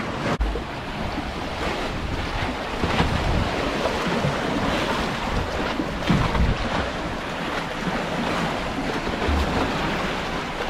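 Seawater surging and sloshing in the gaps between concrete tetrapods, a steady rushing wash, with gusts of wind buffeting the microphone.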